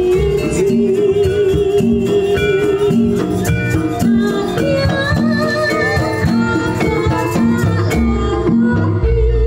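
East Javanese jaranan ensemble music played live: a held, wavering melody line over a regular beat of low struck notes.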